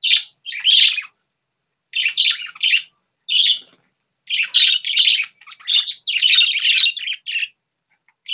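Pet budgerigars chattering and warbling in quick, high bursts, with short pauses about a second in, around four seconds in, and near the end.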